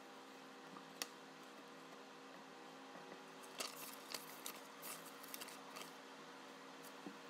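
Printed paper sheets rustling and crackling as they are lifted and turned, in a short flurry from about three and a half to six seconds in, over a faint steady room hum. A single sharp click comes about a second in.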